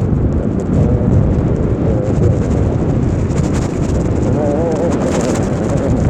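Heavy wind buffeting the microphone during an electric bike ride, a loud, steady rumble.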